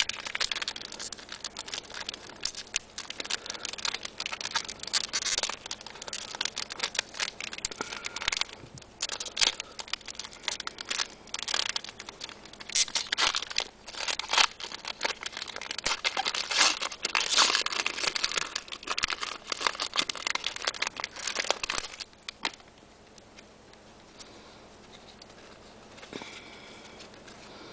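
Wrapper of a Panini Complete basketball card pack crinkling and crackling in quick, irregular bursts as fingers tear and work it open. The handling goes much quieter for the last several seconds.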